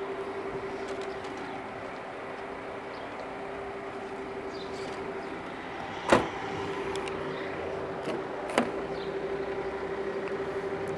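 A steady hum runs throughout, with a sharp click about six seconds in and a smaller click about two and a half seconds later, as the rear passenger door of a Volvo S60 is unlatched and opened.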